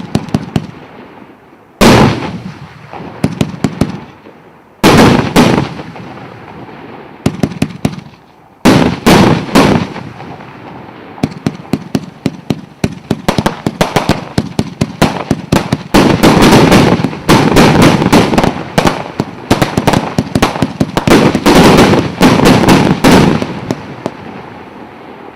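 The 'Armageddon' consumer fireworks battery firing: volleys of sharp bangs every few seconds, then a long dense run of rapid bangs and crackle that dies away near the end.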